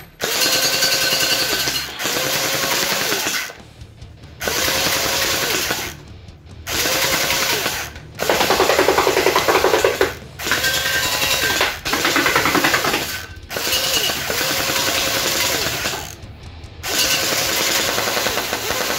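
Electric gel-ball blaster, a G36 replica with an AEG-style gearbox, firing full-auto in about eight bursts of one to three seconds with short pauses between, each burst a fast, even rattle of the gearbox cycling. The replica cannot fire single shots, so every trigger pull gives a full burst.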